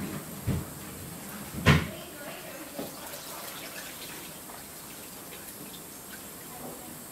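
Hands smoothing and moulding a wet plaster cast around a lower leg, with faint wet rubbing and handling sounds. There are two knocks, a small one about half a second in and a louder one just under two seconds in.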